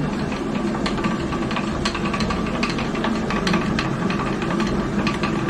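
Traditional water mill's millstone turning and grinding grain: a steady rumble and hum with rapid, irregular clatter from the wooden feed chute and the stick riding on the turning stone.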